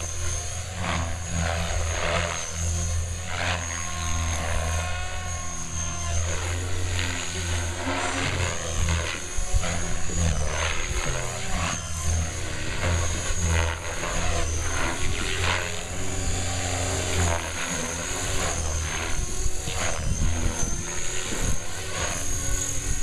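Compass Atom 500 electric radio-controlled helicopter flying aerobatics. Its rotor blades whoosh steadily, while the motor and drivetrain whine rises and falls over and over as it manoeuvres.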